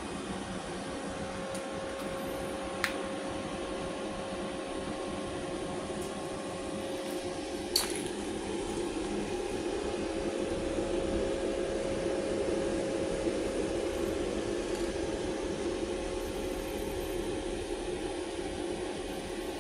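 Cooling fan of a MultiPro MIG-MAG 250NF G-KR inverter welding machine running with a steady hum while the machine stands switched on at idle. Two sharp clicks come about three and about eight seconds in.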